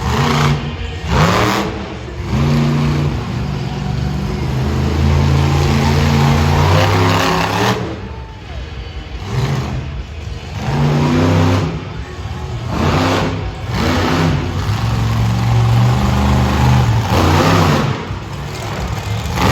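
Monster truck engine revving hard and accelerating, its pitch climbing and dropping again and again as the throttle is worked, with several short loud blasts in between.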